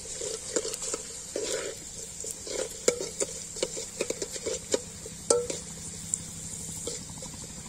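Steel ladle stirring in a stainless steel pot, clinking and scraping against the metal many times, while garlic cloves and mustard seeds fry in hot oil with a steady sizzle.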